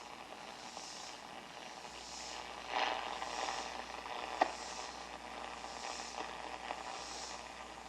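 Hallicrafters SX-100 shortwave receiver putting out hiss and crackling static from its speaker on band 2 with only a shop antenna, swelling and fading every second or so, with a sharp click about four and a half seconds in.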